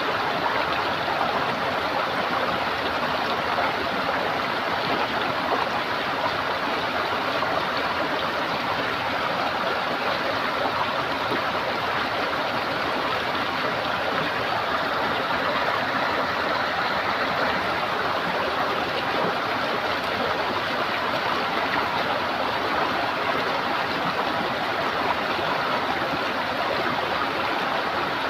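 Running water gurgling steadily in a continuous, even rush.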